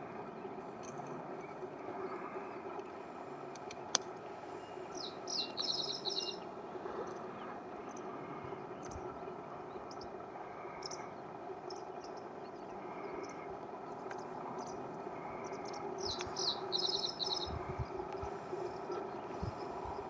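Common reed bunting singing two short song phrases about ten seconds apart, each a few quick notes ending in a brief rapid stutter, over steady background noise.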